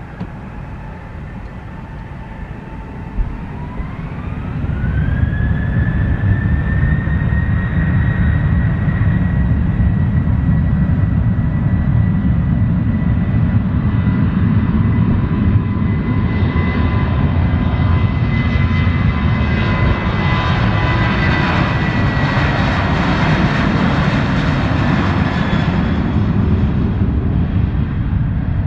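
Jet airliner's engines spooling up: a whine rises in pitch about four seconds in and then holds steady over a loud rumble at high thrust. A wider roar swells and fades in the second half as the aircraft passes.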